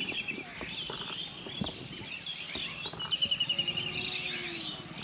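Small birds chirping and calling, with a rapid trill of quick even notes, about ten a second, from about three seconds in. A few faint clicks and knocks sound underneath.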